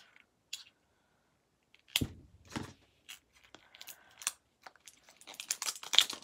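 Washi tape and its packaging being handled: a few light taps and one knock about two seconds in, then a run of crinkly, crackling tearing sounds near the end as the tape is pulled from its roll.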